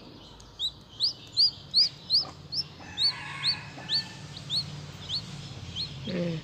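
A newly hatching bird, still curled in its opened eggshell, peeping: short, high, rising peeps repeated about twice a second.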